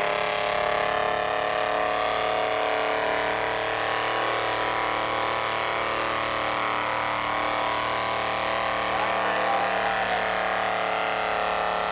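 Engine of a pulling truck running hard at high, steady revs as it drags a weight sled down the pull track.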